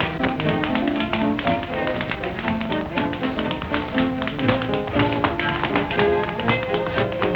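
Rapid tap-dance steps, sharp clicks in a quick, shifting rhythm, over a small jazz band playing an instrumental chorus, on an old recording with a narrow, dull top end.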